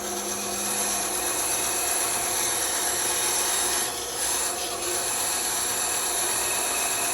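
Bandsaw blade cutting through wood, a steady rasping over the running saw, dipping briefly twice about four seconds in.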